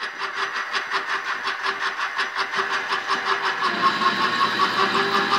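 Grizzly G0769 mill-lathe combo's DC-driven lathe spindle running at about 500–600 RPM, turning soft aluminum bar under a 20-thousandths depth of cut. It is a steady mechanical drone with a fast regular pulsing, and a deeper tone joins in about two thirds through.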